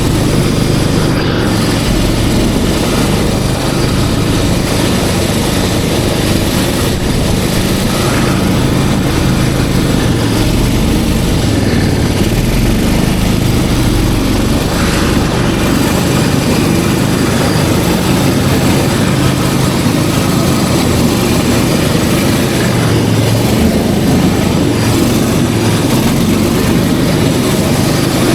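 Snowmobile engine running steadily and loudly, with a dense low drone that holds level throughout.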